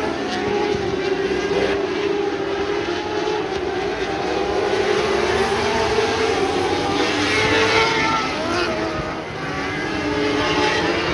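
A field of winged lightning sprint cars racing on a dirt oval, several engines running hard together, their pitch rising and falling as the cars pass and change speed.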